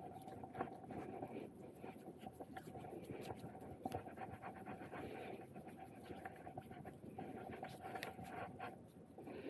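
Faint rustling and rubbing of hands being cleaned for hand hygiene, with small clicks, over a steady faint hum.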